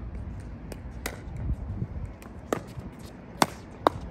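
Pickleball rally: the hollow plastic ball pocking off paddles and the court, about five sharp hits, the loudest two near the end.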